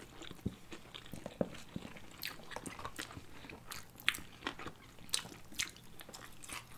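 Close-miked eating of sushi rolls: chewing and biting, with scattered short sharp clicks, the loudest about four and five seconds in.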